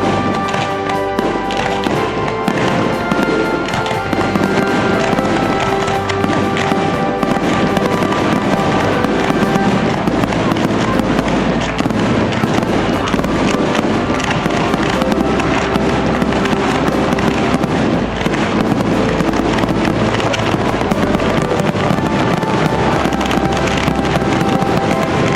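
Fireworks going off in a dense, continuous crackle, with music playing along with them throughout.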